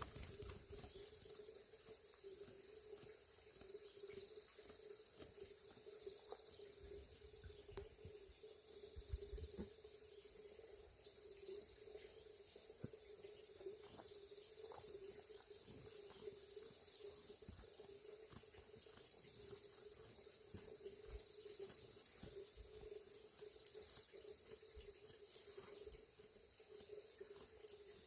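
Insects chirping steadily in a continuous high drone, faint, with a lower steady hum beneath. From about halfway through, a short chirp repeats roughly once a second, and there are a few soft low knocks.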